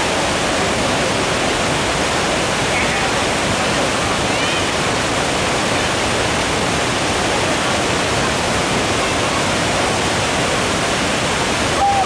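Waterfall: a steady, loud rush of falling water with no break.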